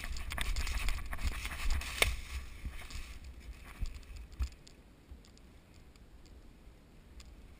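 Close rustling and scraping with many small clicks, busiest in the first three seconds or so over a low rumble, then dying down to faint rustling.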